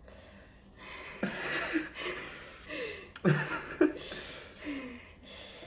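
Two people laughing breathily in several short bursts, with gasps and hard breaths between them, their mouths burning from spicy noodles.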